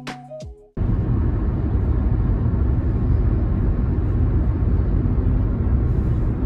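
Steady road and engine rumble heard from inside a moving car's cabin, cutting in abruptly under a second in as background music ends.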